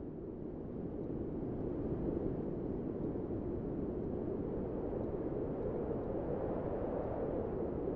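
A steady low rumbling noise without any tone or rhythm, dipping slightly at the start and swelling back up within about two seconds.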